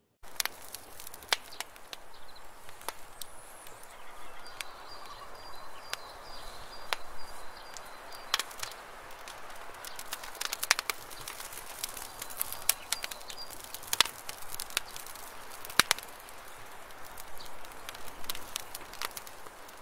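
Wood fire burning with a steady hiss and irregular sharp crackles and pops, a few of them louder snaps. Faint high chirping can be heard a few seconds in and again near the middle.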